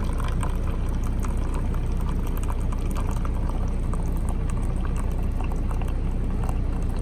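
Mainstays single-serve K-cup coffee maker brewing: hot water gurgling and spluttering as coffee pours into the cup, with irregular small crackles, over a steady low hum.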